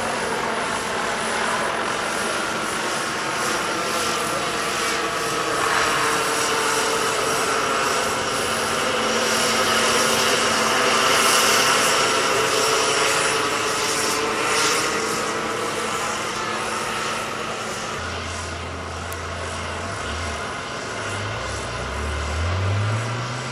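Large turbine-powered scale model helicopter flying overhead: a steady turbine whine mixed with rotor noise. The pitch bends up and down as it passes, and it is loudest about halfway through.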